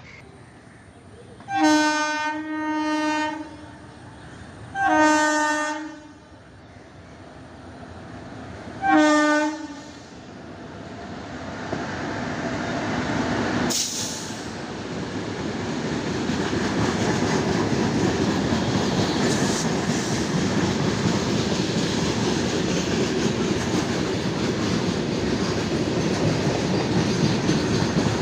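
Goods train's locomotive horn honking in four blasts: two back to back, then two more a few seconds apart. The rumble and wheel clatter of the freight train moving off then builds up and holds steady.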